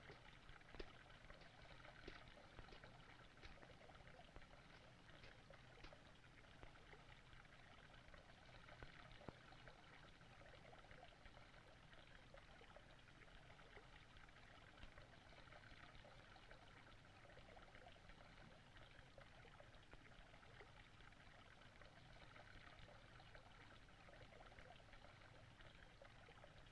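Near silence: a faint steady hiss, with a few faint ticks in the first few seconds.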